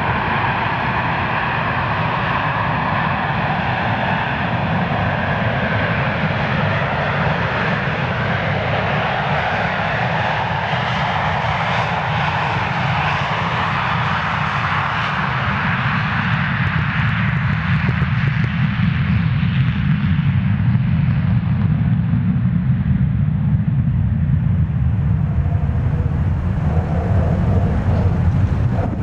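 Boeing 737-200's Pratt & Whitney JT8D turbofans at takeoff power through the takeoff roll and climb-out: loud continuous jet noise. A high whining, rasping part is strongest in the first half and fades after about two-thirds of the way, leaving a deep low rumble as the jet climbs away.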